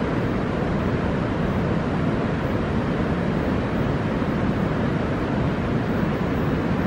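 Steady, even rushing noise with no distinct tones.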